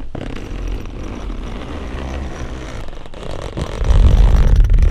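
Tent fabric rustling and swishing as the door flap is pulled open by hand, with heavy rubbing and bumping of the fabric against the microphone in the last second.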